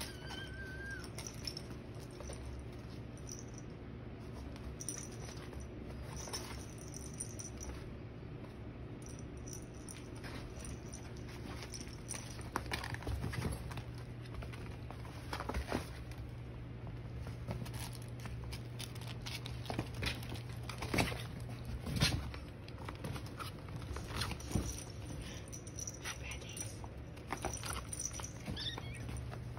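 Maine Coon kittens scampering and wrestling on a fleece blanket: soft scuffling and patter with scattered light thumps, the loudest of them about two-thirds of the way through.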